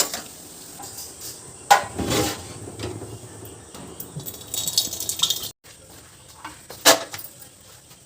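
Metal kitchen utensils and cooking pots clattering: irregular knocks, clinks and a short scrape of a spoon against a pot.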